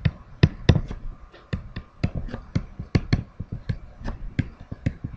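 Stylus tapping and scratching on a tablet as words are handwritten: an irregular run of sharp clicks, several a second.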